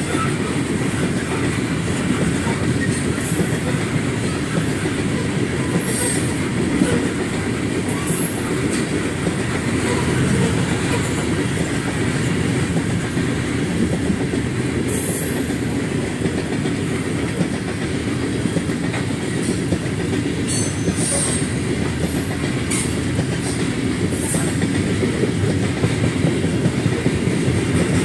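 Freight cars rolling steadily past, their steel wheels clattering over the rails, with brief high-pitched wheel squeals every few seconds.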